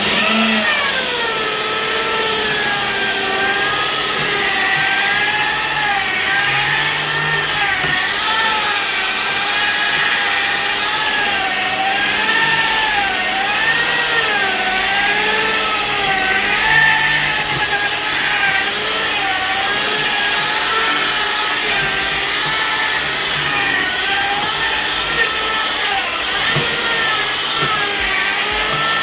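Electric paint polisher running with cutting compound on flatted 2K paint, a steady motor whine whose pitch keeps wavering up and down.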